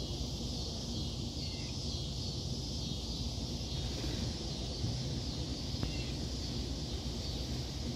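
Outdoor background: wind rumbling on the microphone under a steady high-pitched hiss, with a couple of faint chirps.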